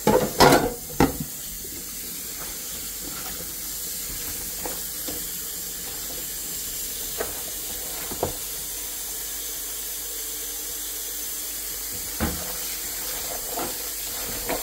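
Kitchen faucet running a steady stream into a stainless steel pot of tripe pieces being rinsed by hand. A few loud knocks in the first second as the metal pot is set into the sink, then occasional small knocks.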